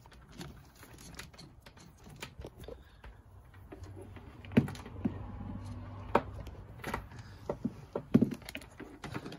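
Scattered clicks and knocks from hands handling power cords and plugs behind a reptile enclosure. The sharpest come about four and a half, six and eight seconds in.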